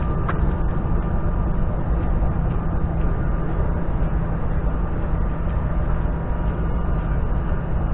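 Wind buffeting the camera's microphone: a steady, low rushing noise.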